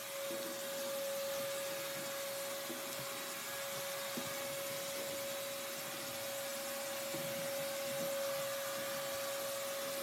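Ridgid HD0600 6-gallon wet/dry shop vacuum running steadily and loud: a constant motor whine at one pitch over a rushing air hiss, with a few faint knocks.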